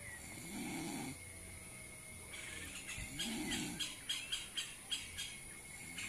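Slow snoring: two long, rasping snores about three seconds apart. A string of short, high clicks falls between them.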